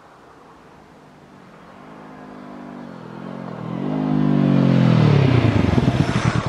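Honda CBR500R's parallel-twin engine revving as the motorcycle accelerates toward and past. The pitch rises, drops briefly at a gear change about halfway, then climbs again. The sound is loudest as the bike goes by near the end, then falls away.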